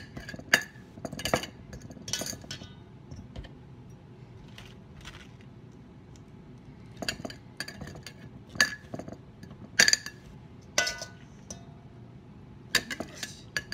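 A metal spoon clinking against a stainless steel bowl and a glass mason jar while scooping shredded cabbage: sharp single clinks, several in the first couple of seconds, then after a quieter few seconds a run of them, about one a second.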